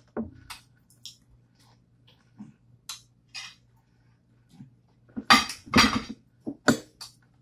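Kitchen dishes and utensils being handled on a counter: scattered light clinks and knocks, then a louder run of sharp knocks about five seconds in.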